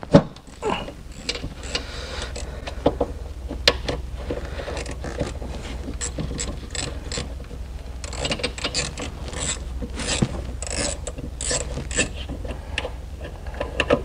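Socket ratchet wrench clicking in runs of quick strokes, working the 13 mm nut off the alternator's main power wire.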